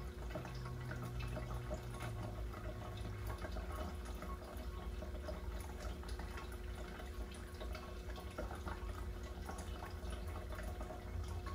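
Water dripping and trickling over a steady low hum, with a low steady tone during the first three seconds or so.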